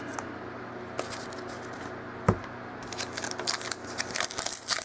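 Hands handling football trading cards and a foil card pack: a single sharp tap about two seconds in, then quick rustling and crinkling from about three seconds in.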